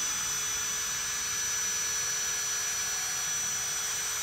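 Handheld electric drill running at one steady speed, a thin high whine over a loud hiss.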